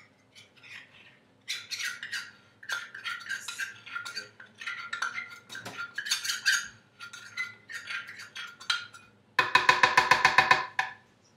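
Metal spoon scraping and clicking against the rim of a blender jug as sticky tahini is spooned in, then a quick run of rapid taps, about a dozen a second, near the end to knock the last of it off; the taps are the loudest part.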